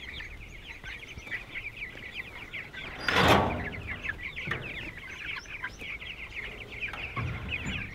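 A flock of young Ross broiler chicks peeping constantly in quick short falling chirps. About three seconds in, the wooden door of their coop gives a louder knock as it is handled.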